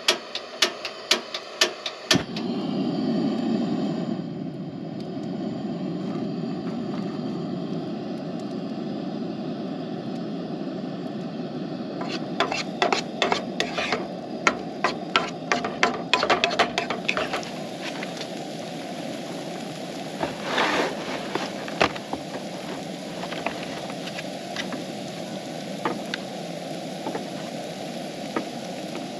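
Chopped onions frying in a pan on a camp stove: a steady sizzle and burner rush that starts suddenly about two seconds in, after a few sharp taps. A wooden spatula stirs and scrapes in the pan for several seconds in the middle.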